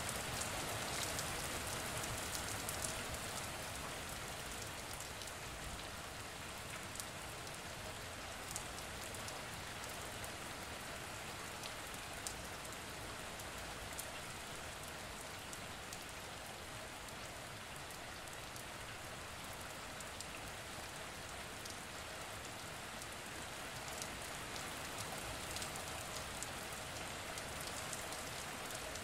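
Faint, steady hiss of noise with scattered light ticks, a little louder in the first few seconds.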